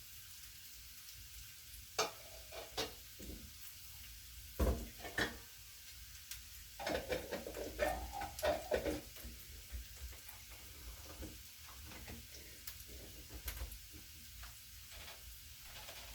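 Beans frying in oil in a pan with a faint steady sizzle, stirred now and then: a utensil scrapes and knocks against the pan in short bursts, busiest about seven to nine seconds in.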